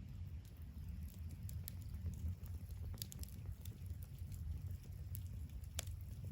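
Wood bonfire crackling, with scattered sharp pops over a steady low rumble, and one louder pop near the end.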